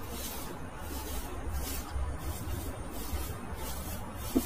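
Straw broom sweeping over a dog's fur and the grass, with repeated soft swishes. A short low pitched sound comes near the end.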